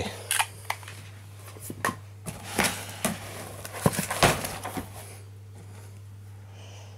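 Cardboard box and its paper contents being handled: irregular clicks, scrapes and rustles over the first four or five seconds, then it goes quieter. A steady low hum runs underneath.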